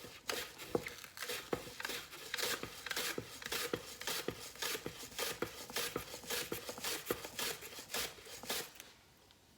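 Vegetables being sliced on a mandoline slicer, fast repeated slicing strokes about three to four a second, stopping near the end.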